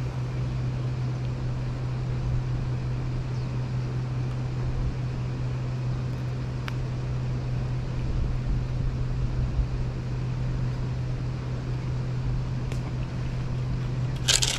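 A steady low machine hum under a constant rushing noise, with a few sharp clicks just before the end.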